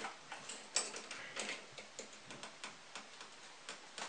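Faint, irregular metallic clicks and taps, a few a second, as pliers work at the saw chain and bar of an angle-grinder chainsaw conversion being fitted to the grinder.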